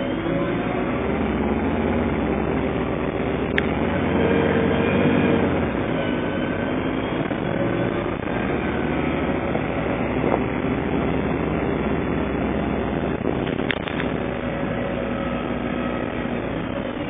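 Alexander Dennis Enviro300 bus heard from inside the passenger saloon while driving: engine and drivetrain running, the engine note rising and falling as the bus pulls away and slows. A couple of sharp clicks or rattles from the bodywork sound in the middle and later on.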